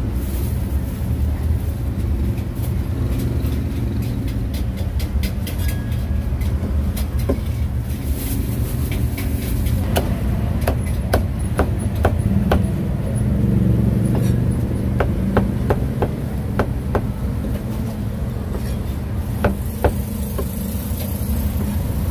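Cleaver chopping roast meat on a thick wooden chopping block: sharp knocks in irregular runs through the second half. A steady low rumble of street traffic runs underneath.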